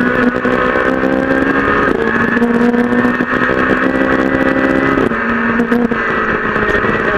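Peugeot 208 R2 rally car's 1.6-litre four-cylinder engine under hard acceleration, heard from inside the cabin. The pitch climbs, drops sharply at an upshift about two seconds in, climbs again and drops at a second upshift about five seconds in. Gravel ticks against the underbody throughout.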